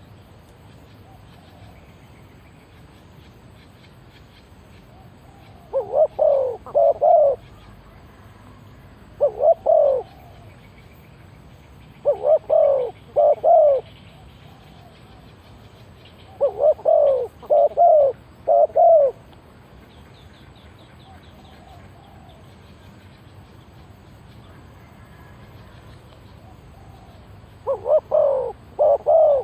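Spotted dove cooing in five phrases of two to four low coos each, several seconds apart, over faint insect chirring.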